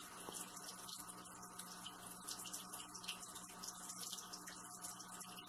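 Faint steady hiss with a low, even hum: quiet room tone.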